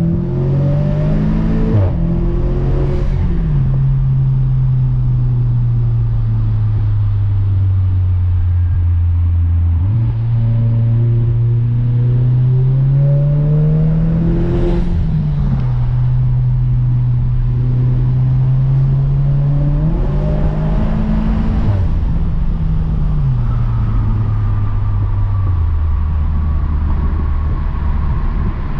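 Modified Audi S3's turbocharged four-cylinder engine heard from inside the cabin while driving. Its pitch climbs under acceleration and drops sharply at several gear changes, holding steady between them.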